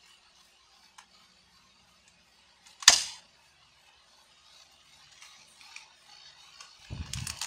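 Airsoft Colt 1911 pistol firing once about three seconds in: a single sharp snap with a brief tail. Near the end come rustling and knocks of handling.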